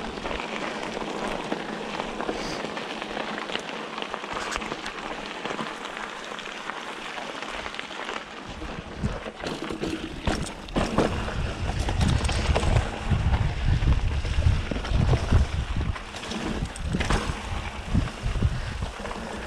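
Mountain bike rolling along a dirt trail, a steady rushing noise of tyres on the ground. From about eight seconds in, a loud, uneven low rumble of wind on the microphone joins it.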